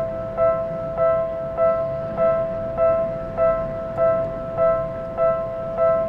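Japanese level-crossing electronic warning bell ringing steadily, a two-tone ding repeating just under twice a second, warning of an approaching train.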